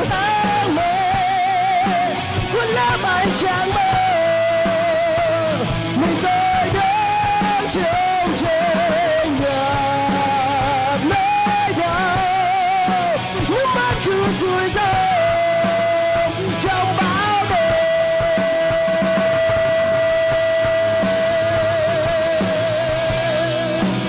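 Live rock band playing loudly, drums and electric guitars under a lead melody with heavy vibrato that settles into one long held note for the last third.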